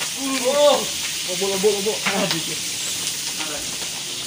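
Cooked rice being scooped out of a large steel pot with a plastic bowl: a few short scrapes and clicks over a steady hiss, with voices in the background.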